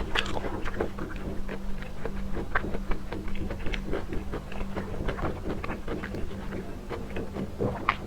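Close-miked eating sounds: a steady string of small wet clicks and smacks from chewing raw prawns.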